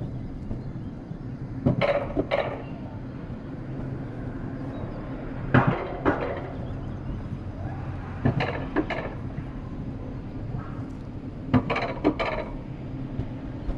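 Wiegand alpine coaster sled rolling along its steel track, its wheels clacking in pairs of sharp metallic clicks about every three seconds over a steady low hum.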